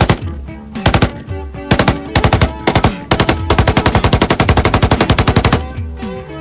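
Browning M1917 water-cooled .30 caliber belt-fed machine gun firing several short bursts of a few shots each, then one longer burst of about two and a half seconds at an even rate.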